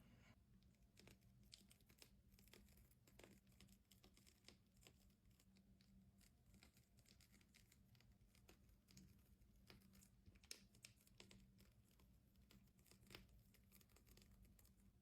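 Near silence, with faint, irregular clicks and crinkling over a low steady hum.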